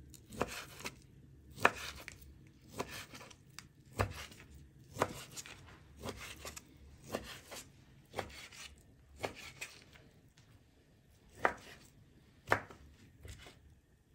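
Knife chopping a sausage into small pieces, sharp strokes landing irregularly about once a second, with a short pause near the end before two harder chops.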